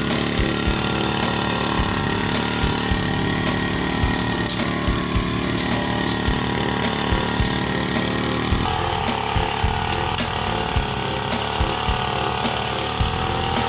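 Petrol brush cutter (grass-cutting machine) running steadily while clearing vegetation; its engine note shifts to a different pitch about two-thirds of the way through.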